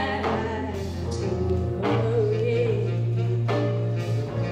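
Live blues band playing: a woman singing, holding a note with vibrato about two seconds in, over saxophone, electric guitar, electric bass, drums and keyboard.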